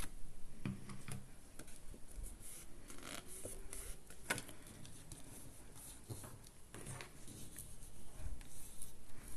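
Paper and cardboard being handled on a worktable: scattered rustles, light taps and small clicks, with one sharper click about four seconds in.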